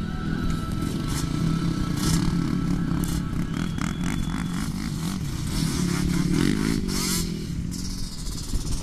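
Sport quad engine running, its revs rising and falling again and again as the throttle is worked.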